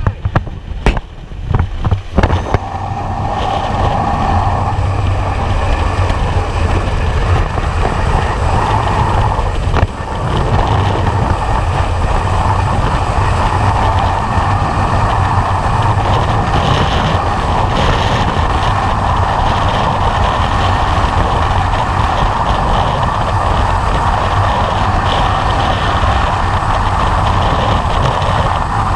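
Freefall wind rushing over a helmet-mounted camera, a loud steady rumble of wind noise. In the first couple of seconds there are a few knocks and sharp changes as the jumpers exit the aircraft door, and then the wind builds within a few seconds and holds steady.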